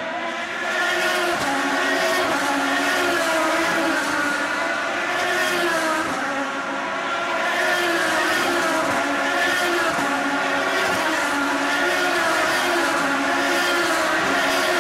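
Several IndyCars' 3.5-litre Honda V8 engines running at high revs, overlapping, their pitch rising and falling as the cars speed up and slow down. The sound gets louder about a second in.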